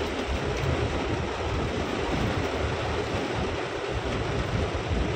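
Heavy rain pounding on the car's roof and windscreen, heard from inside the cabin, over the steady rumble of the vehicle driving on a rough road.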